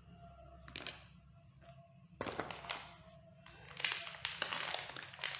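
Rustling and crinkling of a metallic anti-static component bag being handled, with a few light taps first; the crinkling starts about two seconds in and grows louder near the end.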